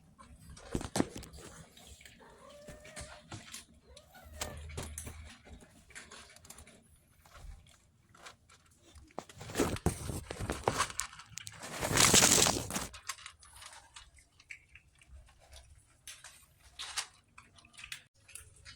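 Cats eating dry kibble, with scattered crunching and clicking throughout. About twelve seconds in there is a louder noisy burst lasting about a second.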